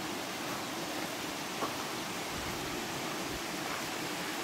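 Steady rushing noise of Toccoa Falls' water pouring down, with one faint tick about one and a half seconds in.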